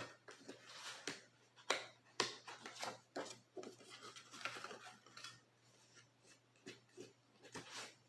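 Tarot cards being handled on a table: a string of light, irregular clicks, slaps and rustles as cards are drawn, flipped and laid down.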